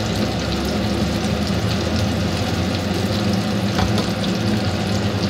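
Eggs with chopped garlic frying in shallow oil in a small nonstick pan: a steady crackling sizzle with scattered pops, over a steady low hum.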